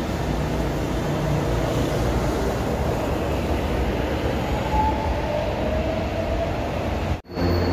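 São Paulo Metro Line 3-Red train pulling out of the station: a steady rumble of wheels on the track with a faint gliding whine from the motors. It cuts off abruptly near the end.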